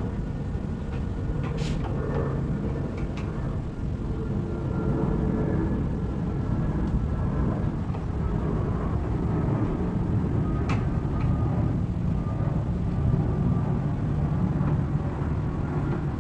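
A steady low rumble, with a few faint sharp clicks from work on a wooden cabinet.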